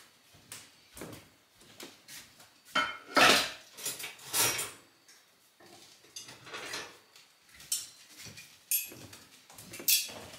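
Dishes and cutlery clinking and clattering in a run of short, irregular knocks, loudest about three to five seconds in.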